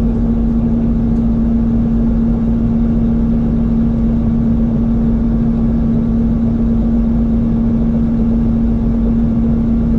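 Light helicopter's engine and rotor running steadily on the ground, heard from inside the cockpit: an even drone with one strong constant hum.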